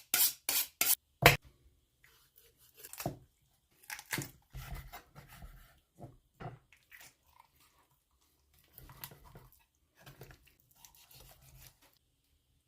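A raw whole chicken being cut up by hand: four sharp knocks in the first second or so, then irregular crunching and tearing as joints crack and skin and meat are pulled apart.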